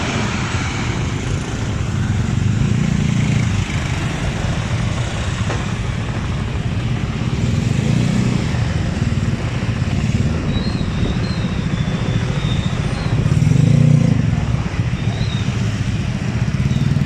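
Road traffic, mostly motorcycles, running past, the engine noise swelling as each group goes by, loudest about 3, 8 and 14 seconds in. Faint high chirps come and go in the second half.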